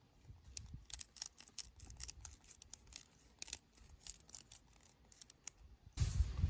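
An irregular run of short, crisp snipping clicks, several a second, that stops abruptly about six seconds in.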